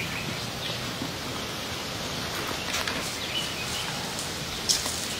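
Steady outdoor background hiss with a few faint ticks and a brief high chirp about three seconds in.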